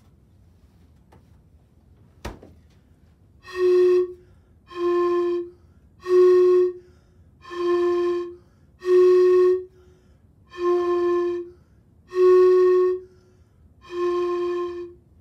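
Two closed-end plastic pipes blown across the open end in turn, giving eight hollow, flute-like tones of about a second each. The pipes alternate between cold, fridge-chilled air (about 352 Hz) and room-temperature air (about 369 Hz); the colder air sounds slightly lower because sound travels more slowly in it. A single click comes about two seconds in.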